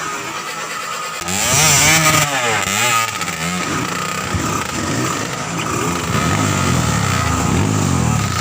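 Dirt bike engine revving, its pitch rising and falling again and again as the throttle is worked, with a louder, hissier burst of revs about a second in.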